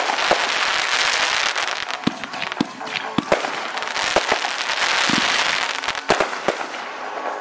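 Fireworks display: aerial shells bursting in a rapid, irregular series of sharp bangs and cracks.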